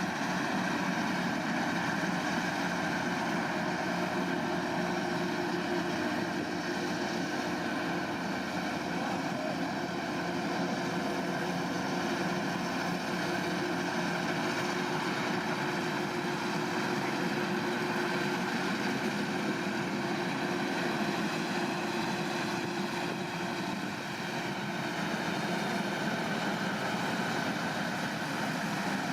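Rice combine harvester's engine running steadily under work, a constant drone with a slight dip in level near the end.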